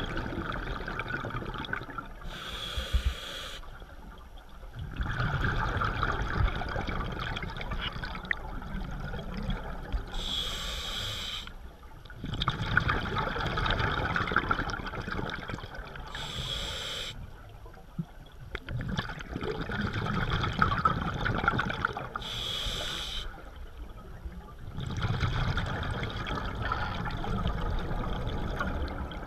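Scuba diver breathing through a regulator, heard underwater. A short hiss of inhalation comes about every six seconds, four times, and each is followed by a long bubbling exhalation.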